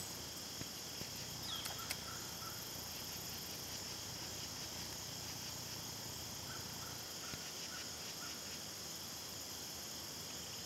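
Steady, high-pitched chorus of insects, with a few faint ticks in the first second.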